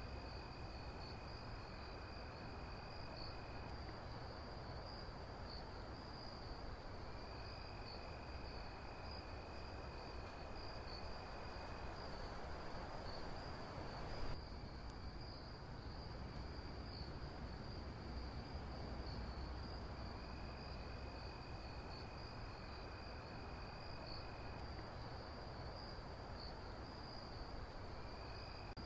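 Faint crickets chirping: a steady high trill runs throughout, and a lower trill comes and goes in stretches of a few seconds, over a low rumble and hiss. There is a short bump about halfway through.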